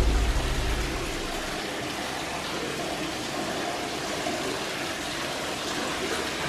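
Bath taps running, water gushing steadily into the tub as the bath fills.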